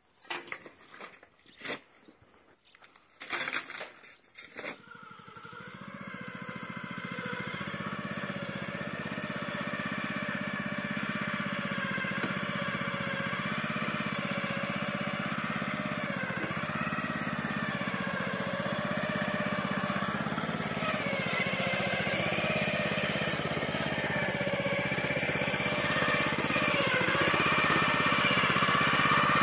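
A few sharp knocks, then a small petrol engine comes in about five seconds in and runs steadily, its pitch wavering slightly, growing gradually louder.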